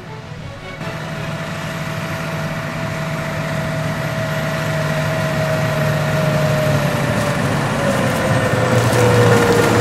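Heavy farm vehicle engine running, growing steadily louder, with a whine that slowly drops in pitch.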